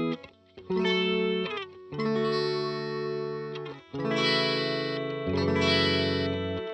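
Guitar playing a short progression of open-string chord voicings, about five chords each left to ring for a second or so before the next; the last chord has a deeper bass note.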